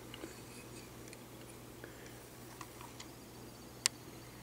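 Faint, irregular small metal clicks from a 1972 Corvette clock movement being handled as its solenoid assembly is worked loose, with one sharp click near the end, over a faint steady hum.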